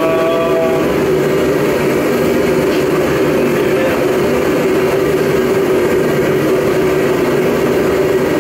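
Blacksmith's forge running steadily: a constant, loud rushing noise with a low hum, with no hammer strikes.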